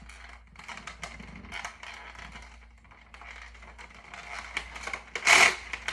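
Plastic clicking, scraping and rattling of a toy foam-dart blaster being handled and worked, with a louder rasping burst about five seconds in.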